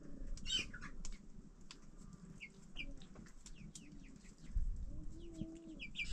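Birds calling, with many short high chirps scattered throughout, and a single thump about four and a half seconds in.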